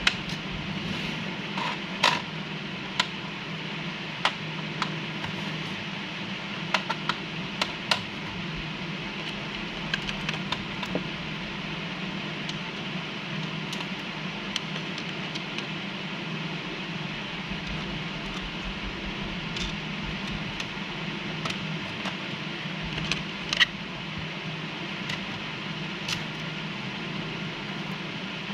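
Long fingernails tapping on the plastic underside of an Acer laptop: scattered sharp clicks at irregular intervals, some in quick pairs, over a steady background hum and hiss.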